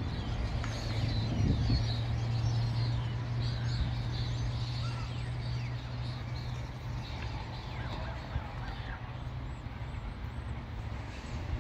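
Steady low drone of an approaching freight train's diesel locomotives, heard from a distance, with small birds chirping throughout.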